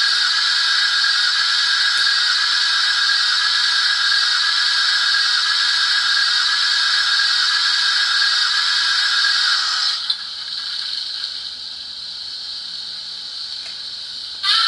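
A model locomotive's DCC sound decoder (Uhlenbrock Intellisound) plays a steady steam hiss through the small loudspeaker in the tender. The hiss drops to a quieter level about ten seconds in, and a short hissing burst comes near the end.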